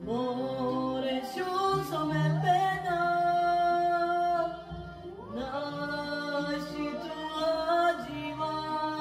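A woman singing solo in slow phrases with long held notes, sliding up in pitch into each phrase, with a short break about five seconds in.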